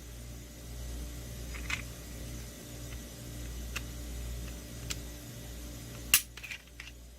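Glock 19 pistol parts handled during tabletop disassembly: a few scattered sharp clicks, the loudest about six seconds in, over a low steady hum.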